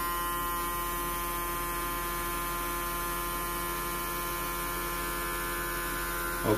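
Steady electrical hum, a buzz with many even overtones, from a homemade generator circuit running and lighting its LED panel.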